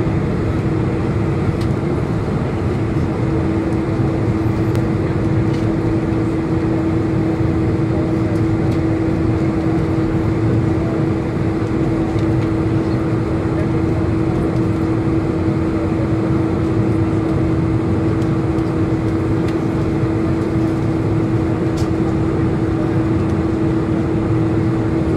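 Jet airliner cabin noise heard from a window seat over the wing while taxiing: a steady engine hum at idle with one constant whine.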